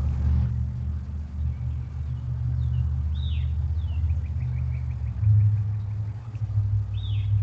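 A steady low motor-like rumble, with two high downward-slurred bird calls about three seconds in and near the end and a quick run of ticking bird notes between them.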